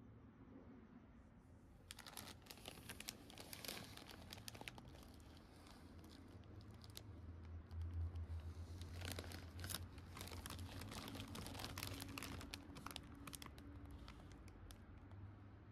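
Crinkling of a Trader Joe's plastic popcorn bag being picked up and handled: irregular crackles starting about two seconds in, with a low rumble from the handling around the middle.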